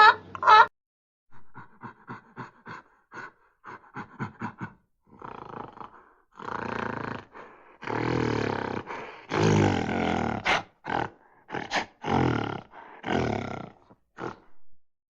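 A big cat roaring: first a run of short, quick grunts, then a series of longer, louder, rough roars, each a second or so long. A loud, brief high-pitched cry sounds at the very start.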